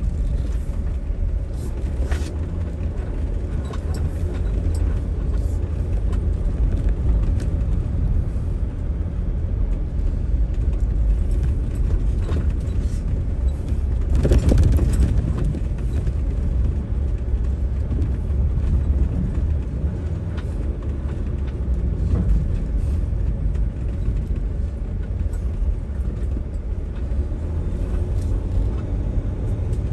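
Jeep Gladiator Rubicon diesel pickup driving: a steady low rumble with scattered knocks and rattles, and one louder thump about halfway through.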